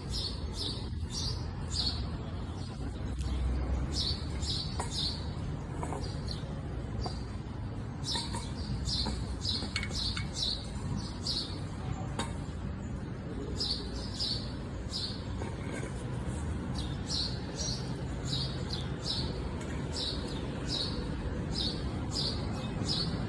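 Small birds chirping: short, high chirps in quick irregular runs, over a steady low rumble.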